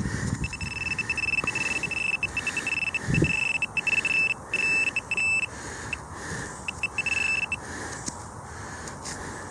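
Metal detector pinpointer giving a high electronic beeping tone in stuttering runs as it is swept through the pile of dug soil, showing that the metal target is in the pile. A soft thump comes about three seconds in.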